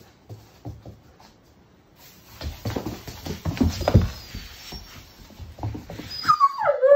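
A broom sweeping a hard floor while a German Shepherd puppy scuffles with it: scrapes, knocks and thumps of bristles, handle and paws, busiest and loudest about three to four seconds in. Near the end, a high whine from the puppy.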